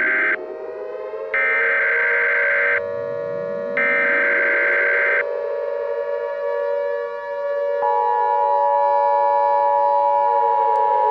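Emergency Alert System tones with a civil defense siren. Three harsh digital data bursts, the SAME header, come in the first five seconds over a siren that winds up again and again. About eight seconds in, the steady two-tone EAS attention signal starts and holds.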